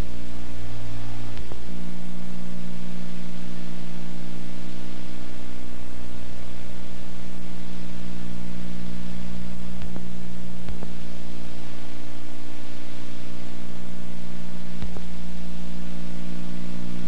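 Steady electrical hum with hiss on an old home-video soundtrack, with a few faint clicks. No sound from the scene itself stands out.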